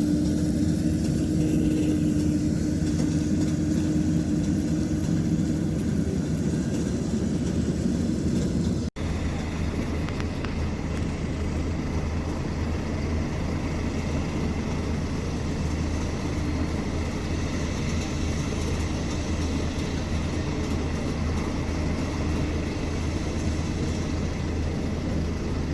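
LS MC85 combine harvester running steadily while harvesting barley: a continuous engine and machinery drone. It breaks off for an instant about nine seconds in, then goes on with a deeper, even hum.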